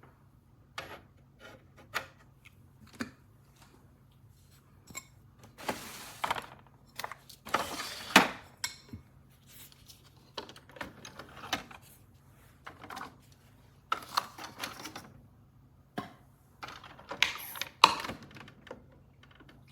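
Handling noise: irregular clicks and taps with a few short scraping rustles.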